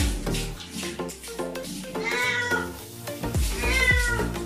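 Cat meowing twice, short rising-and-falling cries while it is held and soaped during a bath, over background music.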